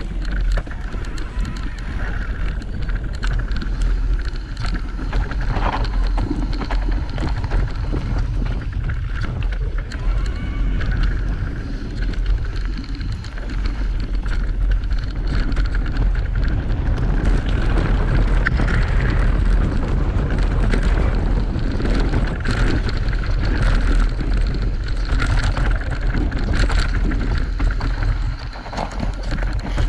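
Electric mountain bike riding down a rough dirt singletrack: wind rumbling on the microphone, tyres running over the trail, and frequent small knocks and rattles from bumps.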